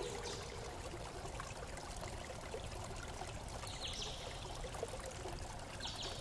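Faint steady hiss like trickling water, with two faint short high chirps, one about four seconds in and one near the end.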